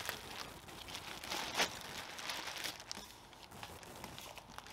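Plastic bag wrapped around a crankshaft crinkling and rustling as the bagged crank is handled and lowered into a cardboard box, busiest over the first couple of seconds and fainter after.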